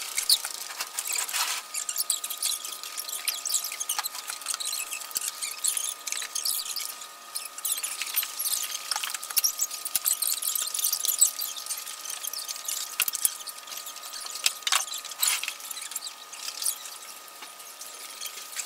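Fast-forwarded sound of paper posters being pulled off a display wall: a dense run of high-pitched squeaks and chirps with a few sharp clicks, over a steady high tone.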